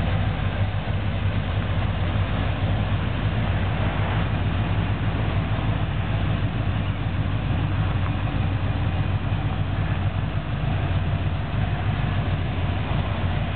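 Corvette's built 350 V8 idling steadily, a constant low rumble with no revving.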